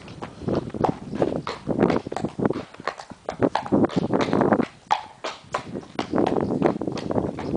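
Horse walking on a concrete farmyard: its hooves clip-clop in a continual, slightly uneven series of sharp strikes, several a second.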